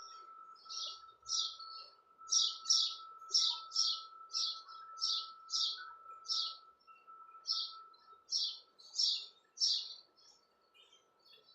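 A small bird chirping repeatedly, short high notes about two a second, stopping near the end, over a faint steady high tone.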